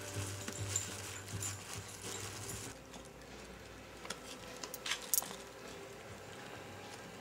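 Husky chewing and tugging at a plastic treat bag: the plastic crackles, and the metal tags on its collar jingle. The crackling stops about three seconds in, leaving a few sharp clicks.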